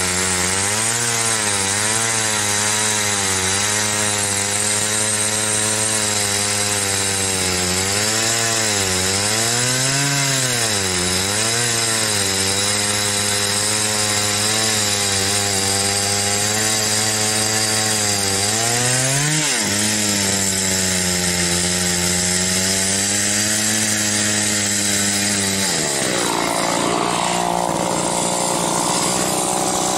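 Homelite 410 two-stroke chainsaw cutting through an oak log, its engine labouring under load with the pitch repeatedly dipping and recovering. The saw has slowed noticeably: its chain was dulled by dirt or a rock in this cut and needs filing. Near the end the engine note drops as the saw comes out of the cut.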